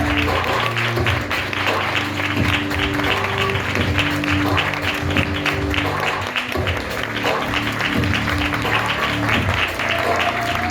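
Theatre audience applauding steadily over the curtain-call music of a stage musical, the clapping dense and continuous over sustained instrumental notes.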